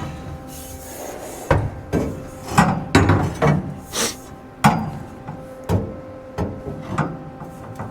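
Irregular sharp knocks and clanks, about eight in all, as steel EMT conduit braces are knocked and fitted into place against the car body before being tack-welded.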